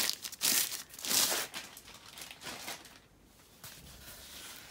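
Clear plastic bag crinkling as a rolled diamond-painting canvas is slid out of it: three loud rustles in the first second and a half, then softer rustling that dies away.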